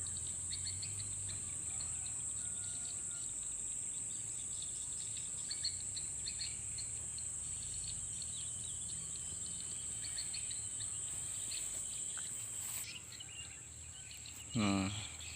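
Insects droning steadily at a high pitch, with scattered bird chirps. The drone stops about thirteen seconds in, and a short voice is heard near the end.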